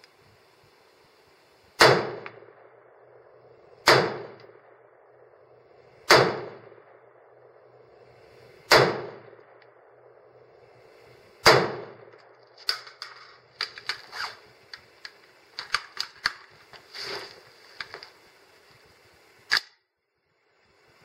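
Five AR-15 rifle shots, two to three seconds apart, each with a trailing echo, followed by a run of metallic clicks and clatter from a magazine change, and a single sharp clack near the end.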